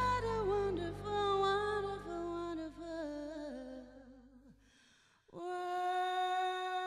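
A female singer with a live band sings a slow phrase with vibrato over a held bass, which fades out about four and a half seconds in; after a brief hush a single steady note begins and is held.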